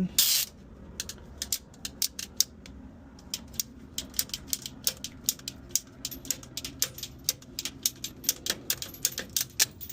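Klein Tools ratcheting cable cutter working through a cable: a run of sharp ratchet clicks, several a second and uneven, after a brief scraping noise at the start.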